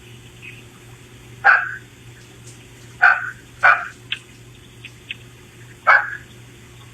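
A dog barking: four single short barks, spaced irregularly a second or two apart.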